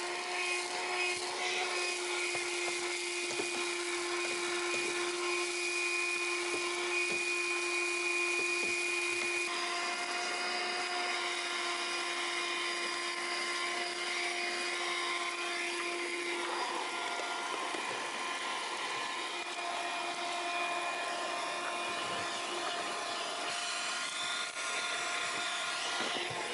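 Black & Decker PAD1200 Flexi Auto handheld car vacuum running steadily, its motor whine shifting pitch a few times as the suction load changes.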